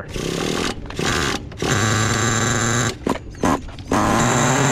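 Small nitro RC car engine being cranked in several short rattling bursts. It fires briefly once, then catches about four seconds in and runs steadily with a high whine.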